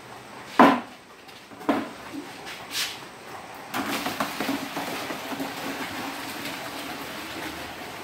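Tomatoes and a plastic bucket being handled over a stainless steel barrel: a sharp knock about half a second in, then two lighter knocks a second apart. After that comes a steady rustling clatter.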